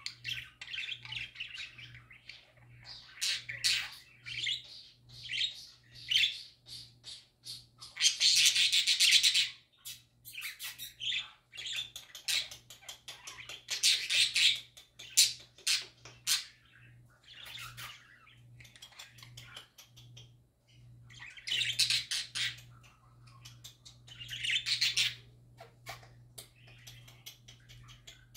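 Pet budgerigars (parakeets) chirping and warbling in quick chattering phrases, with several louder bursts of chatter. A faint steady low hum runs underneath.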